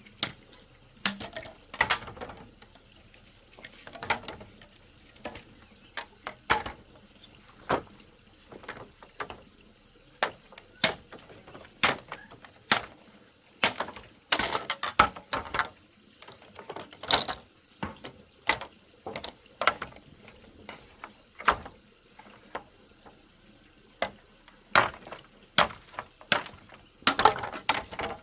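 Irregular knocks, taps and clattering, singly and in quick clusters, typical of wood or bamboo being handled and struck during building work.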